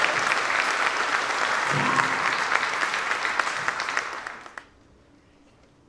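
An audience applauding in a hall: dense clapping that dies away about four seconds in.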